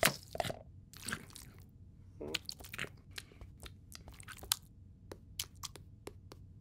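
Cartoon foley of a kitten rummaging in spilled potting soil: crunching and rustling, with a couple of short kitten vocal noises early on. It ends in a quick run of light taps as the kitten scampers across the floor.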